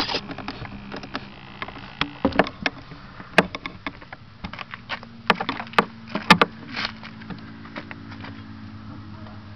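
Small model-airplane engine running steadily at a low idle, with a series of sharp knocks and clatters from the airframe being handled.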